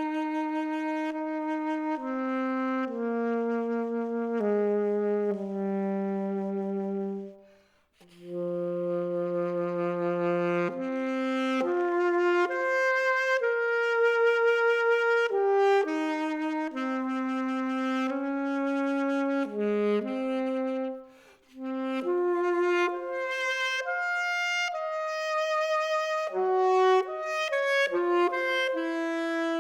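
Unaccompanied saxophone playing a single melodic line. It begins with a slow descending run of held notes, and after a breath about eight seconds in it moves into quicker phrases, with another brief pause around twenty seconds in.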